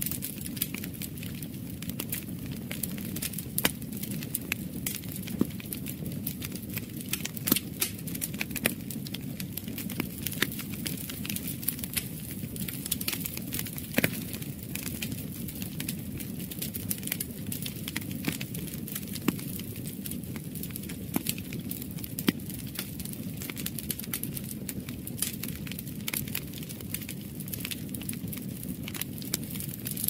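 Wood fire burning in a fireplace, crackling with frequent irregular sharp pops over a steady low flame noise.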